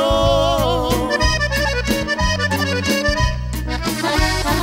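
Norteño band playing an instrumental break of a corrido: accordion melody over electric bass and a steady drum beat.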